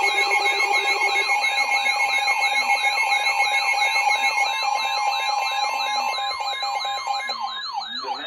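Electronic emergency-alert tones: a fast siren-like warble, about four sweeps a second, layered over steady alert tones that cut out near the end. They herald an incoming severe thunderstorm warning.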